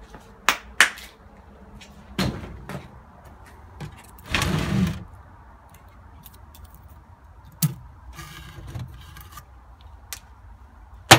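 Knocks and clicks from an old wooden drawer and cabinet being handled, with a short scraping slide about four and a half seconds in and a rattle a little later. The sharpest knock comes right at the end.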